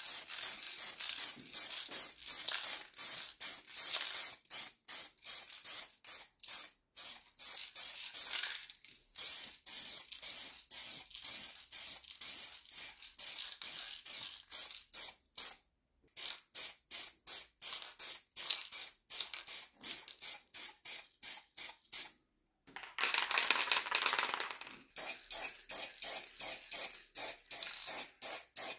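Aerosol can of rust-protective primer spraying in rapid short hissing pulses, about four a second, in runs with brief pauses. Near the end comes one unbroken spray of about two seconds.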